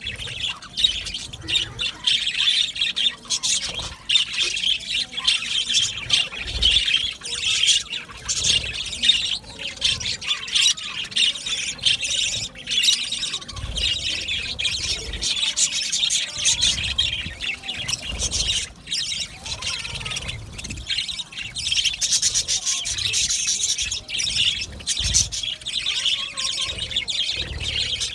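A colony of budgerigars chattering and squawking together, a dense unbroken mass of overlapping warbles and chirps.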